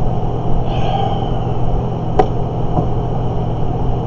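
Steady low hum and rumble of background noise, with a single sharp click about two seconds in.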